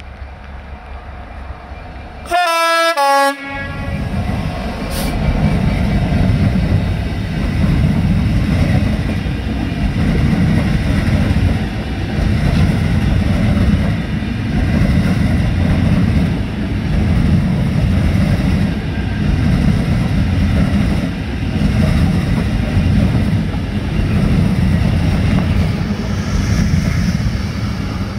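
Convoy of Class 66 diesel-electric locomotives running light. About two seconds in comes a loud horn blast lasting about a second. It is followed by the heavy rumble of the locomotives' EMD two-stroke diesel engines and their wheels on the rails as they pass close by, swelling and easing every couple of seconds.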